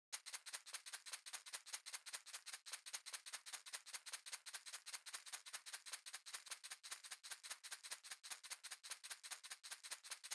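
A shaker, like a maraca, shaken in a fast, even rhythm of several short, bright, hissy strokes a second.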